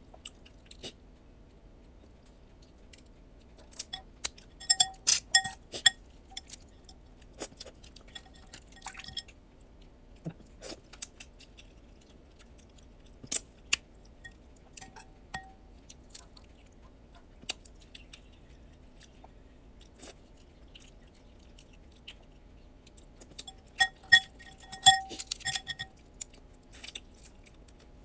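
Blue crab being eaten: scattered sharp cracks, crunches and chewing as the shells are opened. There are two bursts of ringing clinks from the shell-cracking tools, about four seconds in and again near the end.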